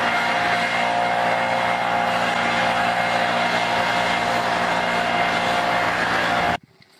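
Backpack leaf blower running steadily at high power, a loud engine-and-fan rush with a held whine, cutting off abruptly near the end.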